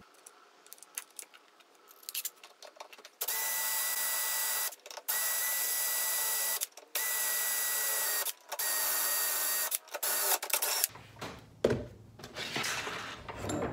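DeWalt cordless drill boring a hole through a steel elevator bolt held in a bench vise: four runs of steady motor whine, each about one and a half to two seconds, with short pauses between them. Faint handling clicks come before, and the clatter of the drill being set down on the bench near the end.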